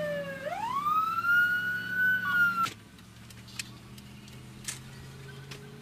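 Emergency vehicle siren wailing: its pitch sweeps up from low and holds high, then cuts off suddenly about two and a half seconds in. A low steady hum and a couple of faint clicks are left.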